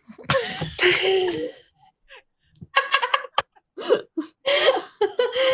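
People laughing: a first burst of laughter, a short pause about two seconds in, then quick choppy ha-ha pulses.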